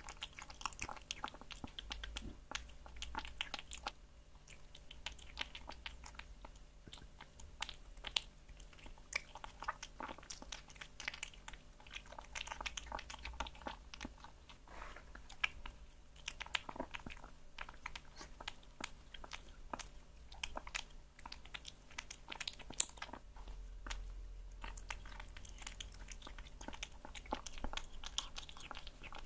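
A kitten chewing and biting chunks of raw meat: a dense, continuous run of small clicks and crunches.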